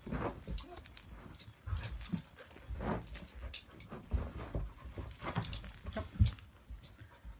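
Ferrets scuffling and pouncing on a fabric cat play mat, batting its hanging toy balls, which rattle and jingle, with scattered soft rustles and knocks. A sharper thump comes about six seconds in.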